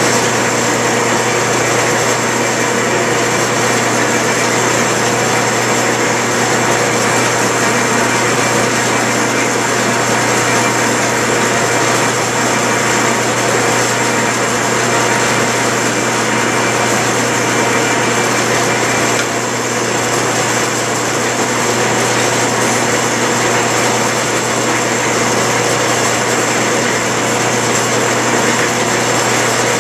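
Metal lathe running steadily under power, its headstock and leadscrew gearing turning: a constant mechanical hum with gear noise.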